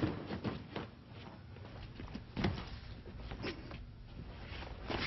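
Scattered soft thuds and scuffs of feet and bodies moving on a padded mat as partners practise grappling throws, the sharpest knock right at the start and another about two and a half seconds in.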